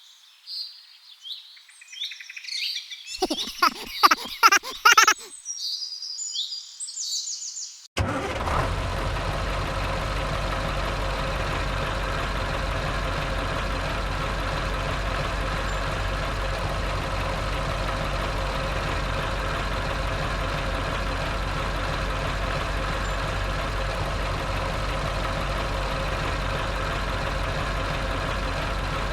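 Birds chirping for about eight seconds, then an abrupt switch to a steady mechanical hum with a constant pitch that runs on unchanged, like a small motor or engine running.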